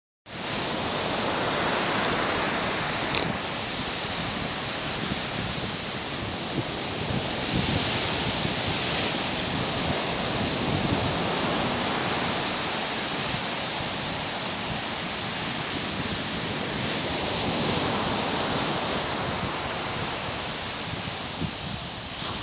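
Steady wind rushing over the microphone, with irregular low buffeting and a single sharp click about three seconds in.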